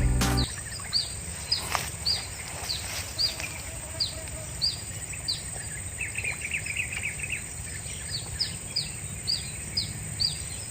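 A bird calling over and over outdoors: short, high chirps that drop in pitch, about one and a half a second, with a brief rapid trill lower down about midway. Background music stops about half a second in.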